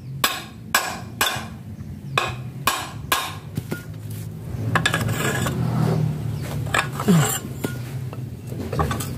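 Hammer blows on the handle of a steel Y-shaped socket wrench, sharp ringing metal-on-metal strikes, about six in the first three and a half seconds, to shock loose the rusted, stuck nut holding the impeller of an Alkon paddy-field water pump. Fewer strikes follow over a low steady hum.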